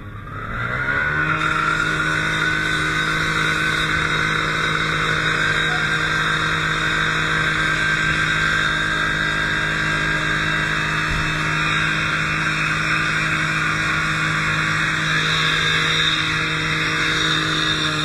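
An engine speeds up over the first second or so and then runs at a steady high speed, with a steady whine above it.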